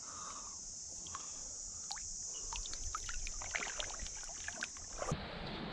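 Faint tide-pool ambience: a steady, high, insect-like hiss with scattered small clicks and trickles of water among the rocks. About five seconds in, the hiss cuts off suddenly and a wider rushing noise takes over.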